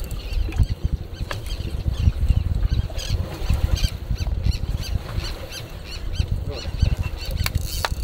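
Wind buffeting the microphone on an open boat at sea, with faint high chirps repeating in the second half and a couple of sharp clicks near the end.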